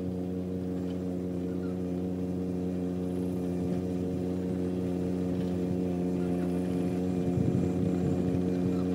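John Deere 17D mini excavator's diesel engine running at steady revs as the machine drives closer, growing slowly louder.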